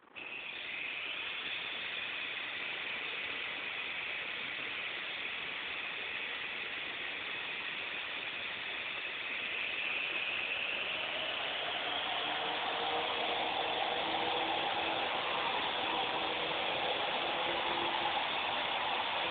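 Battery-powered toy RC helicopter's motor and rotors whirring, starting suddenly as it spins up and lifts off, then running steadily. About halfway through a lower hum joins in and the sound grows a little louder.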